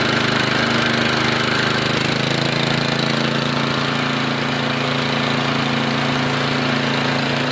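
8 HP Tecumseh single-cylinder four-stroke engine running at a steady speed, driving car alternators through V-belts on a homemade engine-driven welder.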